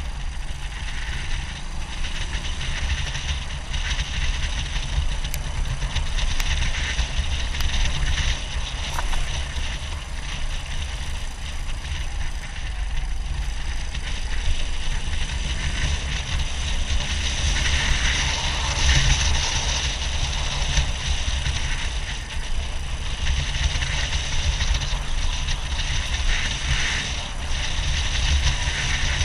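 Suzuki DR200 dual-sport motorcycle being ridden, with a steady low wind rumble on the microphone over the riding noise.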